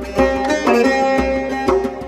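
Background instrumental music: plucked string notes over a low drum beat.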